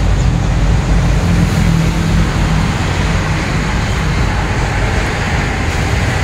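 Loud, steady outdoor background noise with a low rumble and a faint hum.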